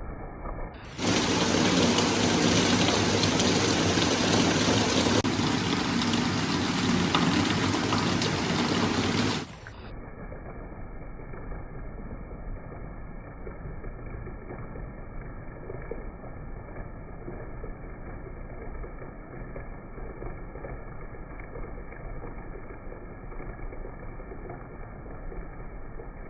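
Heavy rain falling as a steady hiss. It turns loud and bright about a second in, then drops abruptly to a quieter, muffled rain about nine seconds in.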